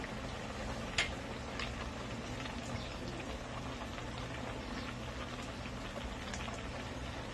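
A pan of mussels boiling in broth, giving a steady bubbling hiss, with a few light taps, the sharpest about a second in.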